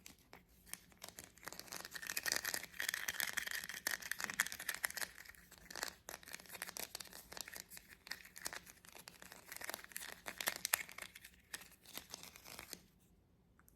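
Fingernails scratching and tapping over the bumpy surface of a small plastic toy bunch of grapes: a dense run of fast crackling clicks that stops near the end.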